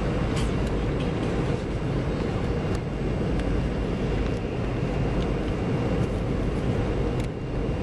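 Steady cabin noise inside a Boeing 717 descending on approach: the rear-mounted Rolls-Royce BR715 turbofans and the rush of air past the fuselage, a deep even rumble with a faint high whine over it.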